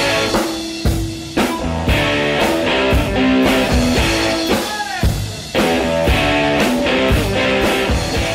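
Rock music with guitar and drums, a drum hit about twice a second.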